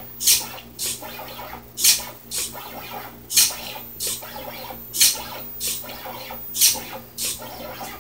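4xiDraw pen plotter at work. Its SG90 micro servo buzzes briefly as it lifts and lowers the pen, in pairs about half a second apart, a pair roughly every one and a half seconds. Under it run a steady hum from the stepper motors and the light scratch of the pen moving between the buzzes.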